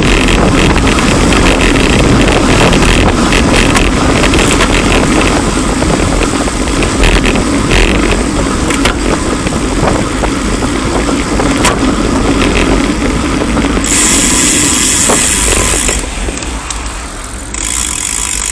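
Wind rushing over a bike-mounted action camera's microphone, with road noise from bicycles riding at about 25 mph. The noise eases and drops near the end as the bikes slow.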